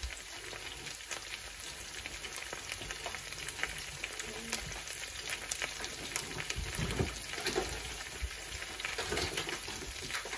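Chicken thighs, potatoes, carrots and onions frying in a pan, a steady sizzle with frequent small crackles.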